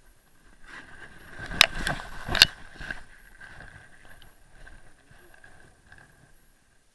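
A fall on a ski slope: sliding and scraping through snow, with two sharp knocks about a second and a half and two and a half seconds in, then quieter rustling in the snow.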